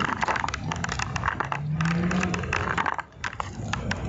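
Rustling and crackling on a body-worn camera's microphone as the wearer walks, over the low hum of road traffic passing.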